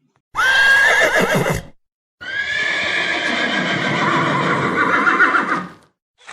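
A horse neighing twice: a short whinny, then a longer one with a wavering, shaking pitch.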